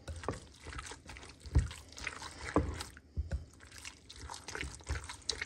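A hand squishing and kneading wet minced pork with grated onion, egg and milk-soaked bread in a bowl: irregular wet squelching, with a few soft thumps.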